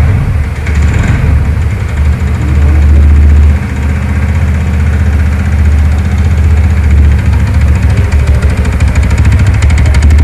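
TVS NTORQ 125 single-cylinder scooter engine running steadily with an abnormal mechanical noise over its normal sound. The owner traces this noise to a loose one-way clutch nut.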